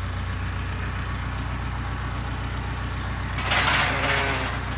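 A steady low drone of an idling engine, with one sheep giving a rough bleat about three and a half seconds in.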